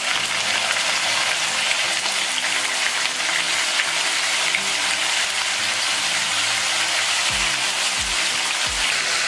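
Pieces of salt cod frying in hot oil in a frying pan: a steady, dense sizzle.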